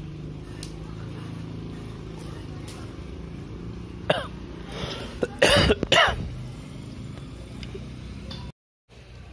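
A person coughing and clearing their throat several times between about four and six seconds in, over a steady low background hum.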